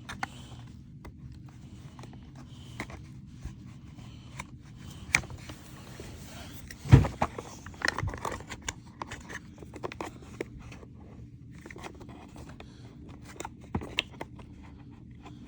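Handling noises as the old drive belt is worked off a Bissell PowerForce Helix upright vacuum: scattered clicks, scrapes and small knocks of the plastic housing and rubber belt, with one louder knock about seven seconds in.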